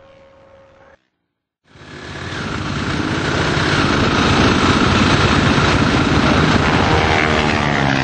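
Near quiet at first, then after a short gap racing motorcycle engine noise fades in and runs loud and steady.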